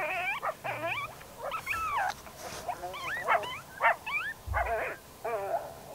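Coyotes yipping and howling: a chorus of short, overlapping calls that slide up and down in pitch.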